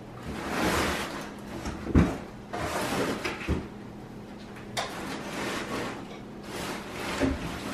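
Rustling of flocked artificial Christmas tree branches being handled and moved, with a few knocks; the loudest is a sharp thump about two seconds in.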